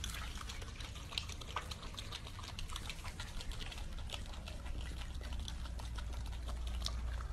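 Opossum smacking its mouth, chewing and licking with its mouth open: quiet, irregular wet clicks several times a second, over a low steady hum.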